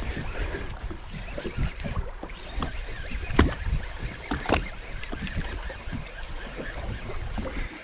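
Water lapping and slapping against the hull of a small boat, with scattered sharp knocks, two of them louder about three and a half and four and a half seconds in.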